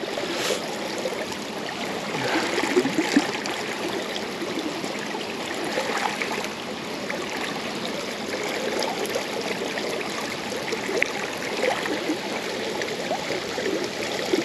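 River current running steadily over a shallow stony bed, an even rush and burble of water, with a few small splashes.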